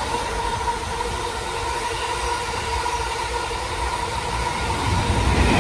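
Container wagons of a long freight train rolling past on the rails: a steady low rumble of wheels with a thin, steady high tone over it. The train gets louder near the end.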